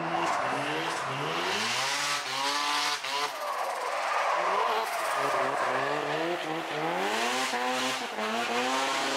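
Mazda RX-7 FD's twin-rotor rotary engine revving up and down again and again as the car drifts, with the tyres squealing throughout.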